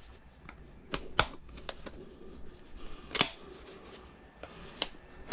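A few sharp, scattered clicks and taps of hand tools on the Xiaomi M365 Pro's rear wheel rim as the tire is levered off.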